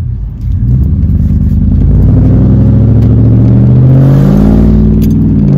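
Chevy Silverado's straight-piped exhaust with the catalytic converters removed, very loud as the truck accelerates, heard from inside the cab. The engine note climbs steadily for about four seconds, then drops suddenly near the end at an upshift.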